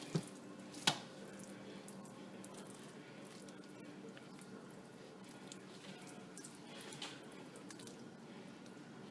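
Hands rubbing a wet seasoning paste over a raw whole chicken: soft squishing, with two sharp clicks in the first second.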